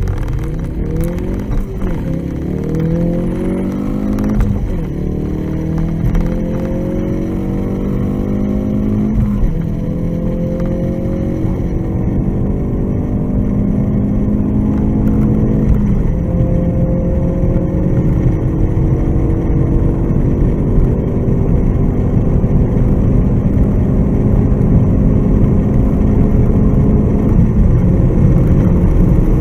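Performance car engine at full throttle, pulling hard up through the gears toward high speed. The engine note climbs steadily in each gear and drops sharply at four upshifts, each gear lasting longer than the one before.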